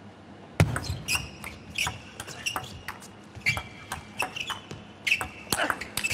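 Table tennis rally: sharp clicks of the ball off the bats and the table, a quick run of them near the end, mixed with high squeaks of players' shoes on the court floor.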